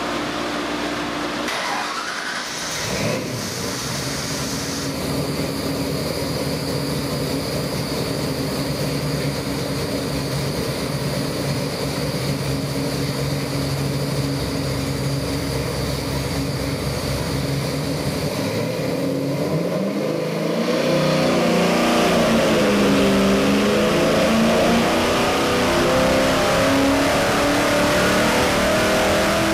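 Ford 408-cubic-inch Windsor stroker V8 with EFI running on an engine dyno. It idles steadily at about 1,000 rpm. About two-thirds of the way through it goes into a full pull under dyno load, louder, its pitch climbing steadily as the rpm rises toward about 4,400.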